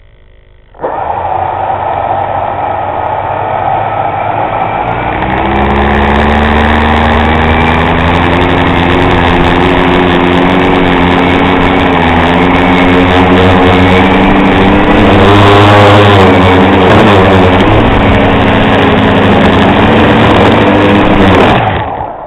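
Tricopter's three electric motors and propellers, heard up close through the onboard camera, spinning up abruptly about a second in and running with a loud whine. The pitch steps up around five or six seconds in, wavers in the middle, and falls away as the motors cut off near the end.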